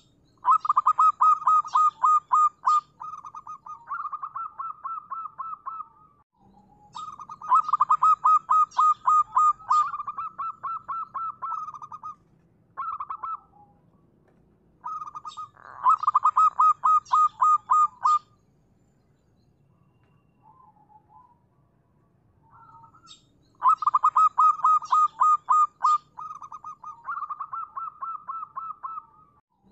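Zebra dove (perkutut) singing: rapid strings of short staccato coo notes, delivered in several bursts of a few seconds each with brief pauses and a few single notes between.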